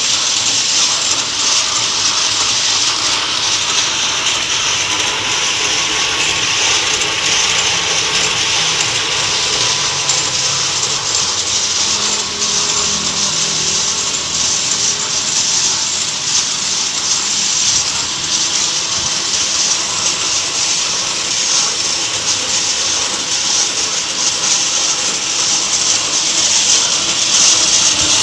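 Homemade lightweight-brick cutting machine running steadily: a loud, even, high-pitched noise with a faint steady whine underneath.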